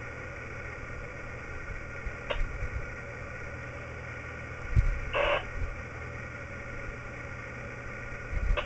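Amateur radio receiver hissing with a steady hum between transmissions on a weather-spotter net. Two brief crackles of noise come about two and five seconds in, with low thumps near the middle and the end.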